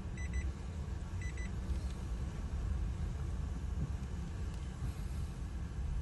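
Steady low rumble of a car on the move, with two quick sets of three short high beeps in the first second and a half.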